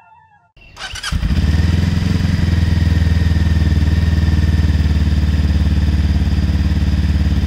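Zongshen Cyclone RZ3S motorcycle engine started about half a second in, catching and then running steadily. This is a test of the headlight after sound-deadening sheets were stuck on its cover, and it passes: the headlight no longer resonates.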